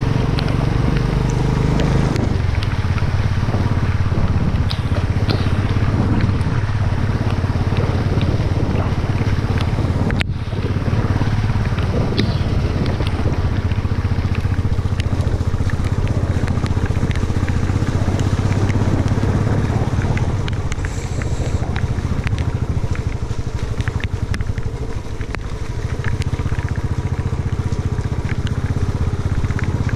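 Motorcycle engine running steadily while riding a wet, stony dirt trail, with frequent short clicks and knocks along the way. The engine eases off briefly about two-thirds through.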